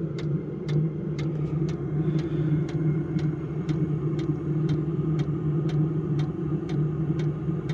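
Vevor 5 kW diesel air heater running: a steady blower hum with the fuel dosing pump ticking about three times a second.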